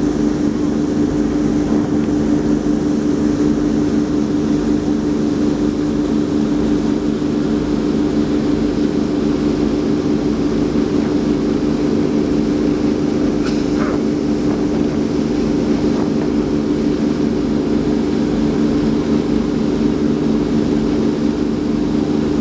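A fishing boat's twin engines running steadily: an even, unbroken drone.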